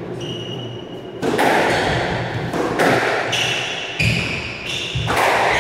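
Squash rally: the ball struck by rackets and hitting the court walls about every second, each hit echoing in the court, with squeaks of court shoes on the wooden floor.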